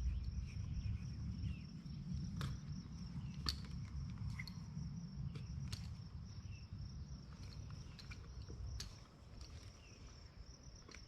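Crickets chirring steadily, over a low rumble, with a scattering of small sharp clicks about a second apart.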